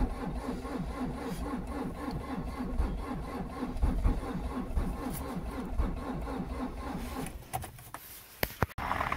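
Starter motor slowly cranking the Renault Megane's 1.9 dCi diesel engine, with about four or five compression beats a second. The engine does not catch, because cold-thickened oil at −23°C keeps it from turning fast enough. The cranking stops about seven seconds in, followed by a few sharp clicks.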